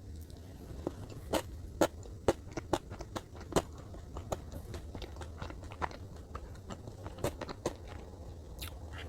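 Close-miked chewing of soft chocolate cake: irregular wet, sticky mouth clicks and smacks, a few of them sharper and louder, over a steady low hum.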